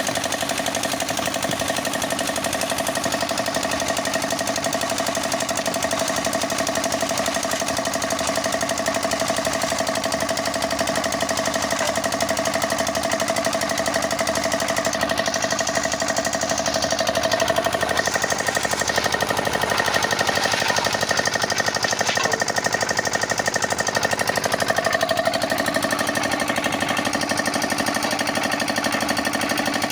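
Concrete mixer running, its engine clattering at a fast, even beat. A steady whine over it drops away a little past halfway.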